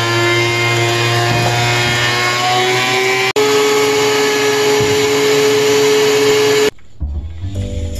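A DeWalt benchtop thickness planer running while a 2x4 feeds through it: a loud machine drone with a motor whine. The whine rises in pitch over the first three seconds, breaks off abruptly, then holds steady until it cuts off a little over a second before the end.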